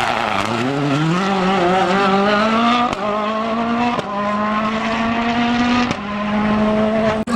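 Rally car engine accelerating hard out of a slow corner. Its pitch rises steeply at first, then holds high, with quick gear changes heard as short breaks about three, four and six seconds in.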